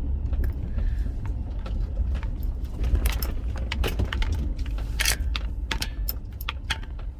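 Strong wind buffeting the microphone in a heavy, steady low rumble, with a scatter of sharp clicks and clinks throughout, thickest in the second half.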